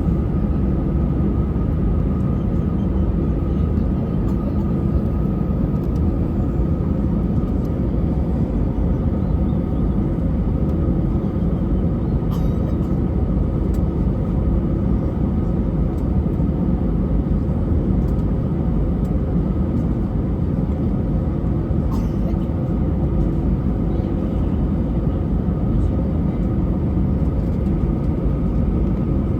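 Airbus A320 engines and airflow heard from inside the passenger cabin: a loud, steady drone with a few held tones and no change in pitch or level.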